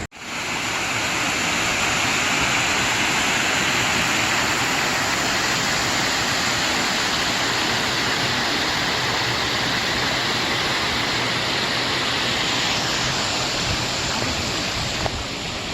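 Mountain stream water rushing in a steady, even hiss that starts abruptly and eases slightly near the end.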